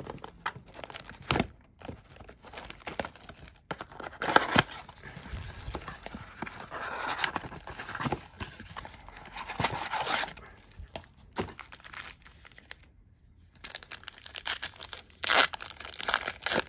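Plastic wrapping and foil card packs of a trading-card blaster box crinkling and tearing as they are opened by hand, in irregular rustles and clicks, with a short lull about 13 seconds in.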